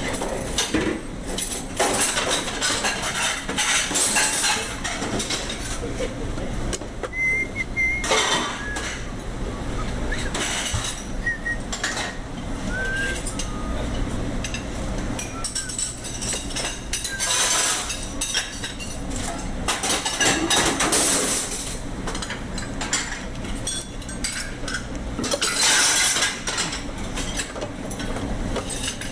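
Hand tools and metal parts clinking and knocking irregularly during repair work on a garbage disposal, over a steady low hum.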